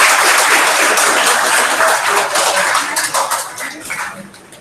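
Hands clapping in applause, a dense patter of claps that thins out and fades away in the last second or so.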